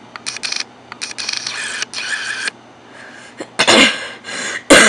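A camera's autofocus motor clicking and whirring in short bursts as it hunts for focus, then a person coughs twice in the second half.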